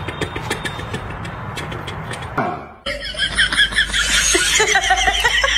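A noisy stretch with scattered clicks, then, after a brief drop about halfway through, loud high-pitched giggling laughter.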